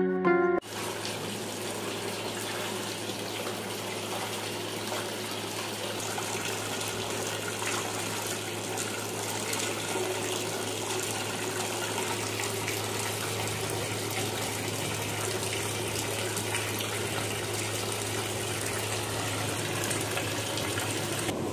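Water running from a tap into a large steel dough-mixer bowl, a steady even gush, with a low steady hum underneath. Music cuts off about half a second in, just before it.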